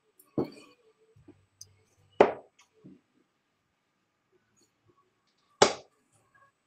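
Three sharp knocks, the second and third louder than the first, spaced about two and three and a half seconds apart.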